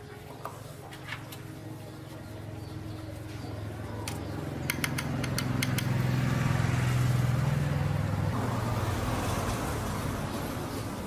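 A motor vehicle's engine rumble that grows louder over several seconds, peaks, then fades, the shape of a vehicle passing by, with a few sharp clicks in the middle.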